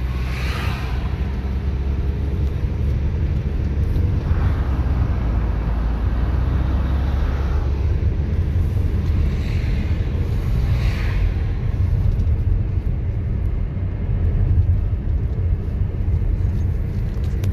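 Steady low rumble of a car's engine and tyres heard from inside the cabin while driving, with three passing swells of hiss as traffic goes by.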